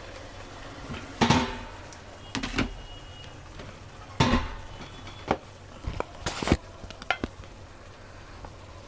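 Steel kitchen utensils clinking and clattering: about six separate knocks of metal on metal, some with a short ring, starting about a second in.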